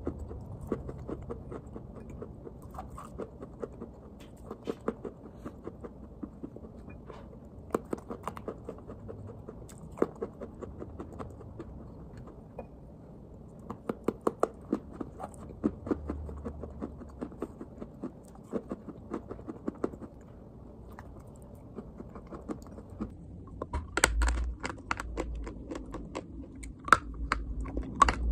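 Water-soaked sticks of white school chalk being bitten and chewed close to the microphone: a rapid, irregular run of crisp crunches and clicks. About 24 s in the crunches turn louder and sharper.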